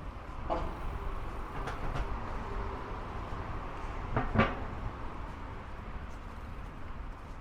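Riding a bicycle: a steady low rumble of wind and road noise with a few rattling knocks, the loudest about four seconds in.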